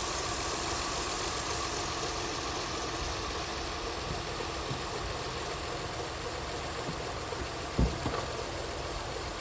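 Honda Accord engine idling with a knock, the fault the car is being repaired for. A single sharp thump sounds near the end.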